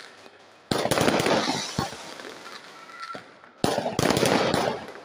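Aerial fireworks going off: a sharp bang about two-thirds of a second in runs into a dense crackle that fades, a single crack follows near two seconds, and a second bang with crackling comes about three and a half seconds in.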